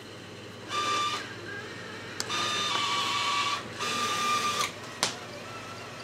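A small electric mechanism whirring in three short bursts, the middle one longest, with sharp clicks between them.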